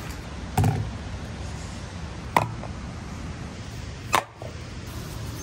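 Three sharp knocks about two seconds apart, of camping gear being handled and set down, over a steady background hiss.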